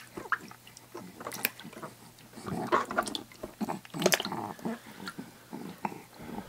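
A baby's small mouth sounds and soft coos, mixed with scattered light clicks and knocks, busiest in the middle of the stretch.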